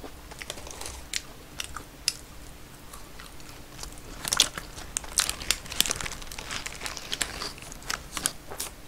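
Close-miked eating sounds of a Burger King red crab Whopper: soft chewing clicks at first, then from about halfway a run of sharp crackles as the paper wrapper crinkles and a bite is taken into the burger.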